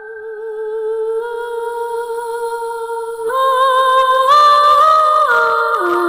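Sampled female voice from the Cinematic Alpha Vocals Kontakt library singing a wordless, hum-like held note with vibrato. From about halfway the pitch steps up twice, then steps back down twice near the end.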